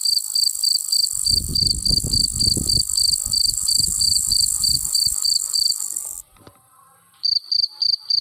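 Cricket chirping in an even rhythm, about three high chirps a second, over a steady high hiss of insects. A low rumble comes in a second in and fades out by five seconds. Near six seconds the sound drops out for about a second, then the chirping resumes.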